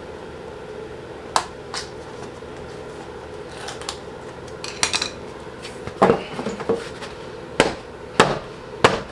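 Scattered sharp plastic-and-metal knocks and clicks as a car's front bumper cover is pushed and fitted into place, two early on and a quicker run of them in the second half, over a faint steady hum.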